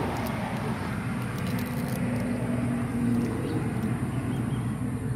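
A steady low engine rumble, with a hum that swells for a second or two in the middle.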